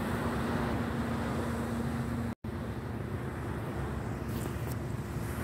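An engine running steadily with a low hum, under wind and sea noise; the sound drops out for a split second a little over two seconds in.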